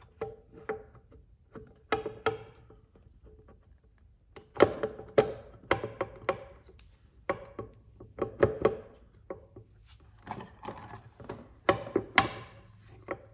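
Irregular knocks and clunks as the Honda Navi's left crankcase cover is worked and pressed onto its dowel pins against the engine case, with the loudest knocks about four and a half seconds in and again near the end.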